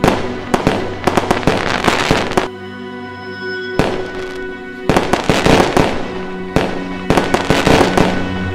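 Fireworks going off in quick bangs and crackles over music with long held notes. The bangs stop for about a second midway, then start again.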